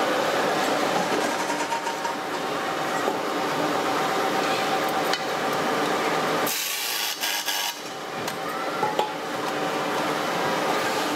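Steady workshop machinery noise with scattered metal knocks, and about halfway through a pneumatic screwdriver's air hiss for about a second as a handle is screwed onto an aluminium pressure cooker body.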